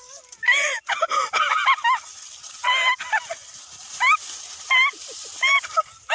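A run of short, high animal calls, about a dozen, each rising and falling in pitch. Several overlap in the first two seconds, then they come singly at intervals of about half a second to a second.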